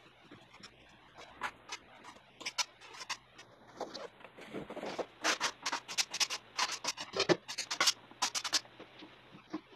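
Metal spatula scraping and tapping along the edge of a gypsum block, a string of short sharp scratchy strokes, sparse at first and coming quickly from about halfway through.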